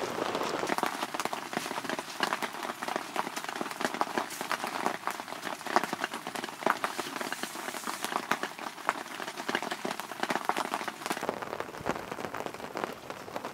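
Rain falling on a camping tarp overhead, with many separate drops striking it at an irregular, steady rate.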